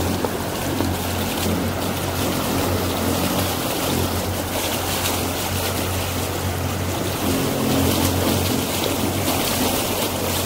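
Motorboat engine running at a steady drone, with water rushing past the hull.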